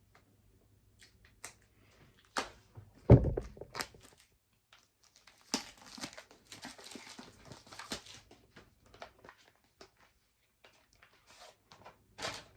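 Packaging being opened by hand: scattered clicks and taps, a heavy thump about three seconds in, then a few seconds of crinkling and tearing.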